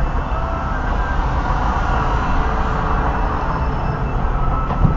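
Steady road noise and engine hum of a car driving at about 30 mph, heard from inside the cabin, with a single short thump near the end.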